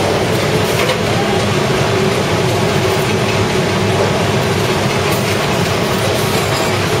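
Lian Tiee AFG 1500 flexo printing machine's top counter ejector running steadily, stacking and ejecting corrugated boxes: a dense, even mechanical noise.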